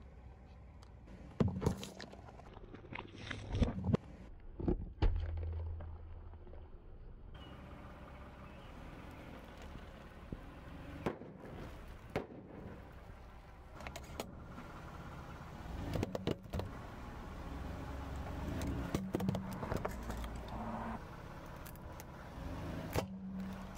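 Car tyre rolling slowly over small objects, crushing them with a series of sharp cracks and crunches over a low engine rumble.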